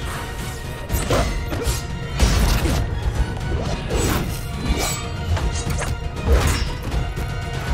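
Film score music under a sword fight: a rapier clashing again and again against a pair of sickles, with sharp hits and swishes coming every half second or so.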